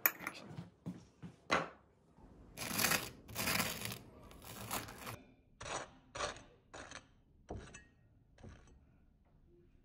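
Table knife scraping butter across crisp toast: three longer strokes about two and a half seconds in, then five shorter strokes roughly every half-second to second. Before them, a few light clicks and taps of the knife.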